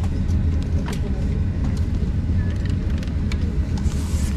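Steady low rumble inside a Boeing 737-800 passenger cabin before takeoff, with light clicks and rustling as a paper safety card is handled in the seatback pocket.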